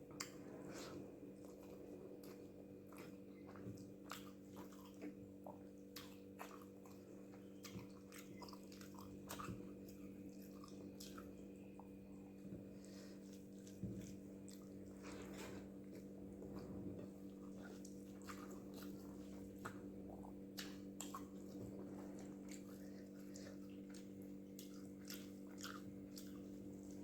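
Close-up wet chewing and mouth clicks of a person eating rice with spicy egg gravy, irregular and faint, over a steady low hum.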